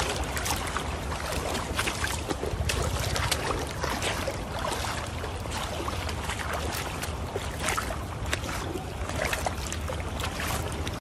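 Rubber boots wading through ankle-deep running seawater over stones, with repeated small splashes and crunches, over a steady rush of water and a low wind rumble on the microphone.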